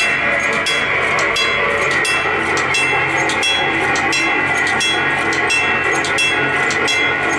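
Train running on the rails: a steady running noise with a string of sharp, irregular clicks.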